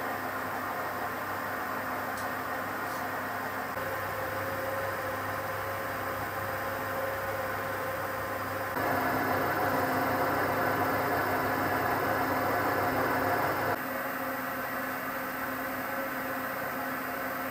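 Steady mechanical hum with several held tones under a noisy haze, stepping louder about 9 seconds in and dropping back about 14 seconds in.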